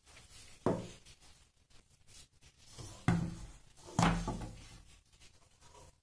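Three dull knocks as a heavy lump of bread dough is turned out of a stainless steel mixing bowl onto a granite countertop, the bowl and dough striking the stone: one knock, then after a pause two more about a second apart.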